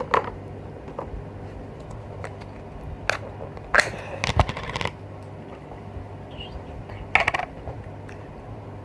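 Slime and its plastic tubs being handled: a few sharp clicks and knocks, with short crackling, crunching stretches about four seconds in and again about seven seconds in.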